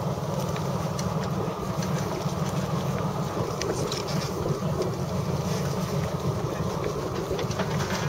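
Steady low rumble of a sailing yacht under way, with a few faint knocks as crew handle gear on the foredeck.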